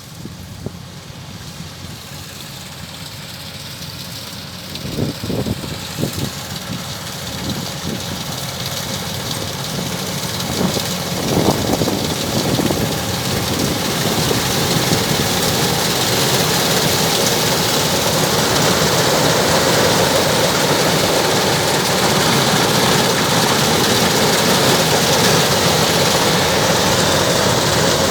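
Kubota DC-105X combine harvester's diesel engine running, growing steadily louder over the first half and then holding steady. A few brief knocks and rattles come about five to six seconds and eleven to twelve seconds in.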